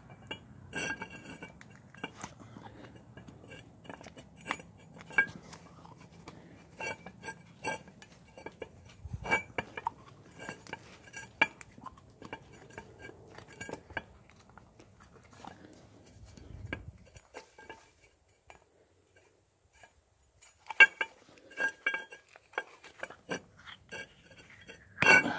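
Scattered light metallic clinks and taps, each with a brief ring, as an old rubber slide-pin boot is worked out of a 2010 Toyota 4Runner's rear caliper bracket; a quicker cluster of clinks comes near the end. A low steady hum underneath stops about two-thirds of the way through.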